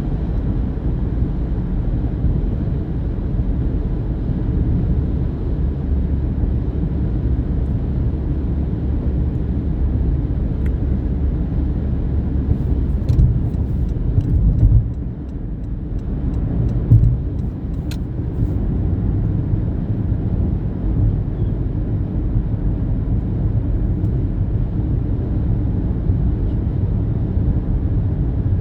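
Steady low rumble of a moving car's road and engine noise, with a few faint clicks and a brief drop in level about halfway through.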